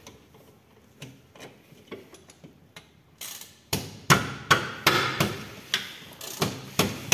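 Hammer blows on the engine-mount stud bolt of a 50cc cub motorcycle, knocking it out of its seat: a few light clicks at first, then from about halfway in a run of sharp strikes, about two a second.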